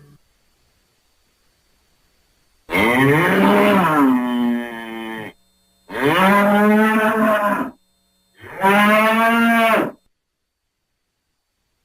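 Bull mooing: three long, loud moos in a row, starting a little under three seconds in, the first one bending up and down in pitch.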